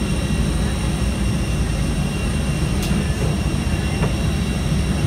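Cabin noise of a parked Airbus A320-232: a steady low rumble with thin constant high-pitched whines over it, and a faint click about three seconds in.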